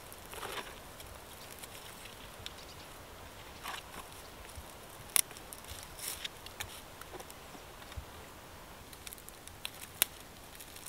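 Small conifer twigs being snapped and rustled by hand as kindling, with two sharp snaps, one about midway and one near the end, among softer crackles.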